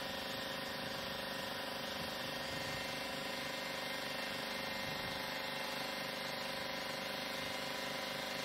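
A steady mechanical hum with several constant tones, unchanging throughout.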